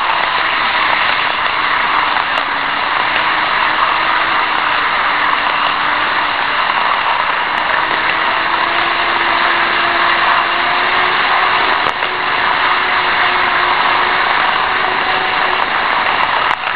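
N-gauge model trains running on track, heard from on board a moving model freight car: a steady rattling hiss of wheels on rail with a faint, slightly wavering motor whine underneath.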